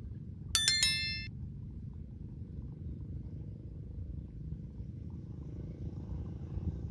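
A bell-like notification chime sound effect rings out about half a second in and fades within a second, over a steady low rumble.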